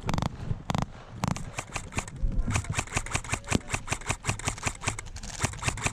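Heavy footsteps, then from about a second and a half in, rapid airsoft gunfire: a quick, even run of sharp clicks, about nine shots a second.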